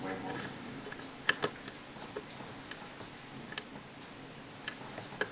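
Small, sharp metallic clicks and ticks of a lock pick working the pins of a Union euro cylinder lock under a tension wrench (single pin picking). The clicks come singly at irregular intervals, about eight in all, the loudest about three and a half seconds in.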